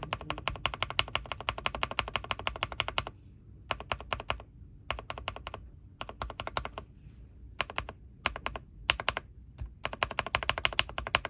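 Rapid plastic clicking of mechanical keyboard parts being pressed, like keys being tapped. A fast unbroken run comes first, then shorter bursts with brief pauses, and another quick run near the end.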